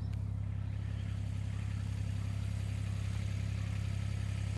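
A vehicle engine idling steadily, a low even hum that cuts off abruptly at the end.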